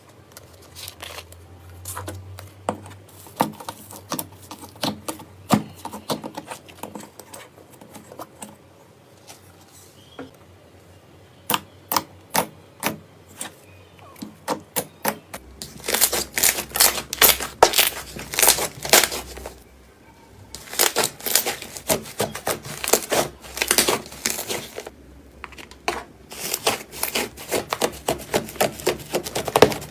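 Slime being pressed and worked by hand, making sharp clicking and popping sounds. The clicks are scattered and soft at first, then come in loud, rapid, typewriter-like runs from about halfway through.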